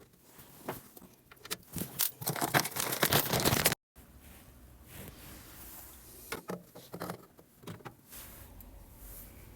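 Plastic microwave door parts being worked by hand: a rapid run of scraping and clicking for about two seconds that breaks off suddenly, then scattered single clicks.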